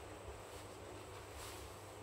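Faint steady hum and hiss, with a soft crinkling rustle of stiff PVC trousers about one and a half seconds in as the legs move.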